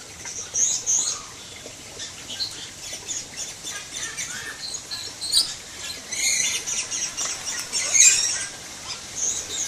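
Many birds calling together: a busy run of high chirps and twitters, with sharp, loud squawks about five and eight seconds in.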